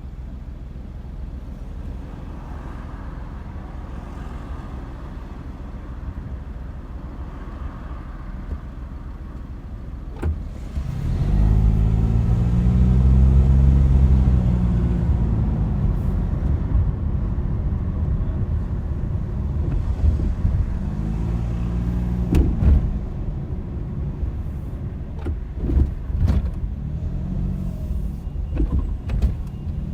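Car driving: steady engine and road rumble, then from about eleven seconds in the engine pulls harder, its pitch rising and falling in arcs several times as it accelerates and changes gear, with a few short knocks.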